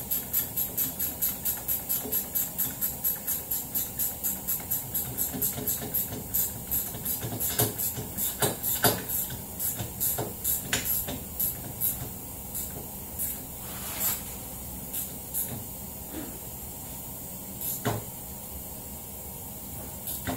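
A 10 mm ratchet wrench clicking as it tightens a rear brake caliper bolt on an ATV hub: a fast, even run of several clicks a second, slowing after about six seconds into sparse, irregular clicks and a few light knocks.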